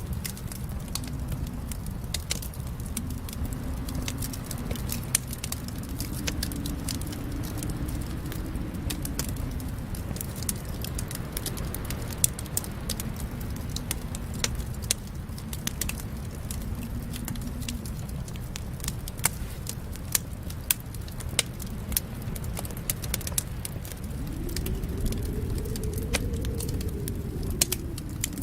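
Fire in a fireplace crackling, with many sharp pops and snaps over a steady low rumble of flames. The rumble swells up and down slowly, most strongly near the end.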